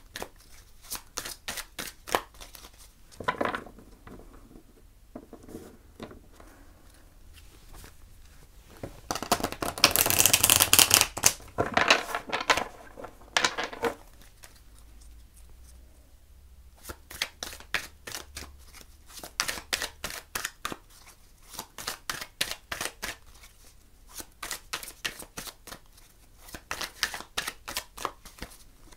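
A deck of oracle cards being shuffled by hand, a rapid run of small card slaps and clicks. A louder, denser flurry comes about ten seconds in, then a short lull before the shuffling picks up again.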